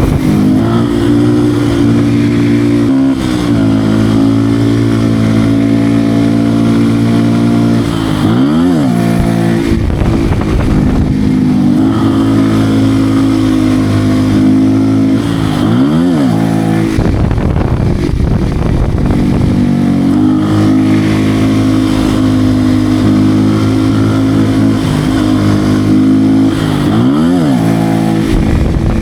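Beta RR 125 R supermoto's single-cylinder 125 cc engine running under way, holding a steady pitch for long stretches, with three quick revs that rise and drop back.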